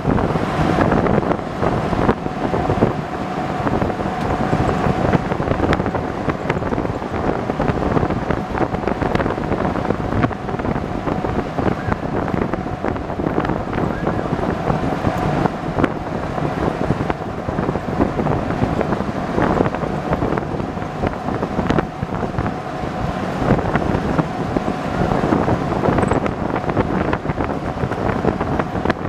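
Open-sided amphibious duck boat (a WWII-era DUKW) driving on a dirt trail: engine running under steady wind and road noise, with a faint steady whine through about the first half.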